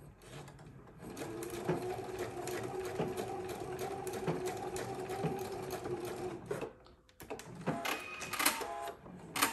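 Electric sewing machine stitching a seam, running steadily for about five seconds and then stopping; a few short clicks and whirs follow near the end.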